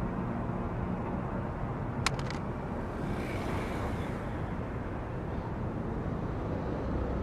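Steady low rumbling background noise with no music, and a quick run of a few clicks about two seconds in.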